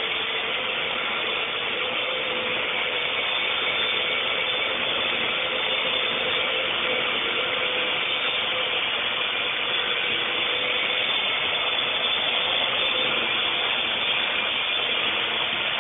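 Parrot AR.Drone quadcopter hovering, its four geared electric motors and propellers making a steady whirring buzz with one held tone running through it.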